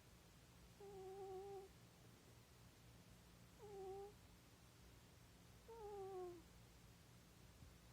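A cat snoring: three short, pitched, wavering snores about two seconds apart, the last one sliding down in pitch, over a faint steady low hum.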